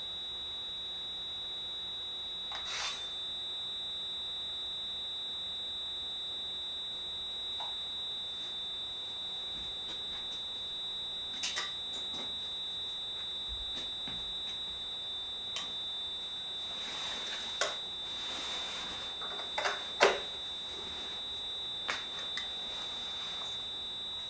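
A steady high-pitched electronic tone holds unchanged throughout. Scattered clicks and knocks of gear being handled and set down sound over it, the sharpest about twenty seconds in.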